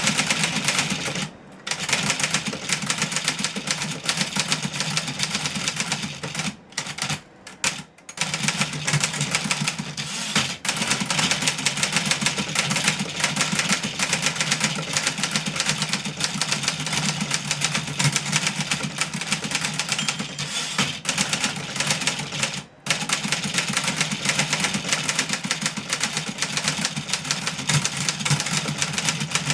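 1963 Remington Model 11 portable typewriter being typed on at speed: a dense, continuous clatter of typebar strikes, with short pauses about a second and a half in, around seven to eight seconds in, and once more near the end.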